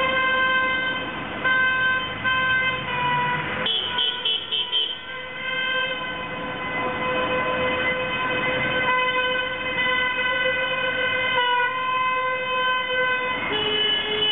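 Car horns held down in one long, steady honk, several notes sounding together. The chord of horns shifts about four seconds in and again near the end. The drivers are honking in protest.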